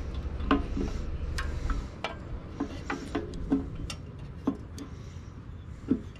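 Scattered clicks and light knocks of a small-engine carburetor and its linkage, metal and plastic parts, being twisted and pulled loose by hand from a Briggs & Stratton engine. A low steady rumble runs under the first two seconds.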